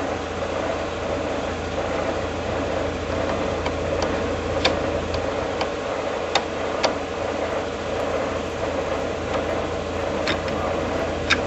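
Steel brake drum clinking against the wheel studs and hub as it is worked onto the tractor's axle: a few short, sharp metal clicks over a steady mechanical hum.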